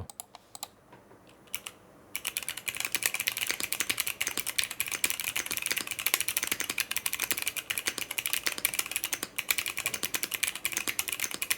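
Typing on a mechanical keyboard with clicky switches and ABS Cherry-profile keycaps. After about two seconds of near quiet with a few single clicks, a fast, dense run of key clicks begins, and the switches' clicks dominate the sound.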